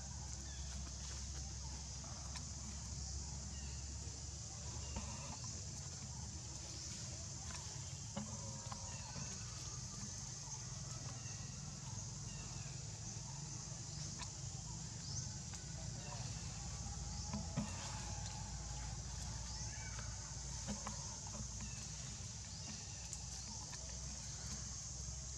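Outdoor ambience in the trees: a steady high-pitched drone under a low rumble, with scattered short chirps and a few faint clicks.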